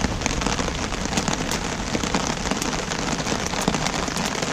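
Steady rain falling, with many individual drops ticking close to the microphone.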